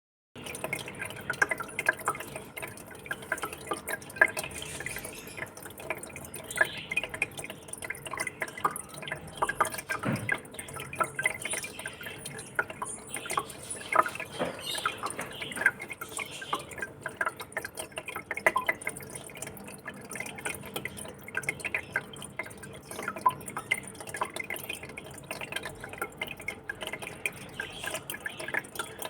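Water in a fish tank dripping and splashing: a continuous, irregular stream of small plinks and trickles over a steady wash of moving water.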